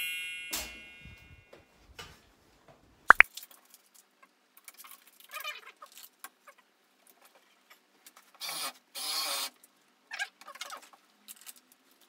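An edited chime sound effect ringing and fading away over the first second. After it, faint scattered work sounds: a sharp click about three seconds in and two short scraping bursts near nine seconds.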